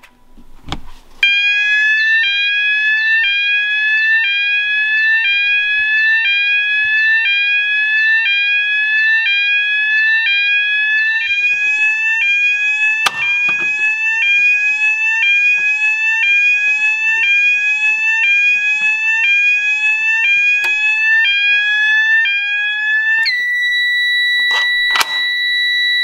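Vantage 32-tone combi sounder/beacon sounding its alarm: a loud electronic tone rising in a sweep and repeating about once a second. Near the end it switches to a steady high continuous tone.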